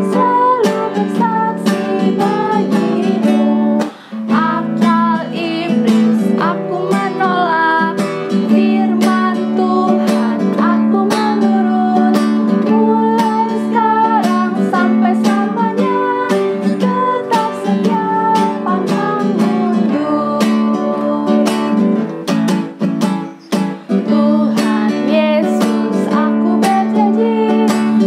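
Acoustic guitar strummed steadily, accompanying two women singing an Indonesian children's worship song in unison, with two brief breaks in the strumming.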